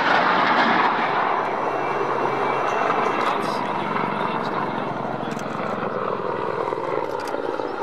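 Loud, steady aircraft noise: jets of a low aerobatic formation passing at the start, then a Mil Mi-24 attack helicopter's turbines and rotor as it flies a display pass overhead.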